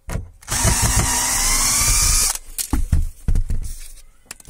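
Hitachi cordless drill-driver backing the screw out of a metal plasterboard ceiling hanger in a timber beam: a short blip, then the motor runs for about two seconds. A few knocks and clicks follow as the metal hanger is worked free of its ceiling rail.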